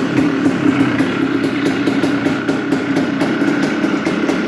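1996 Yamaha Blaster's single-cylinder two-stroke engine idling steadily just after a cold start with the choke out. It has a knock that the owner suspects is piston slap.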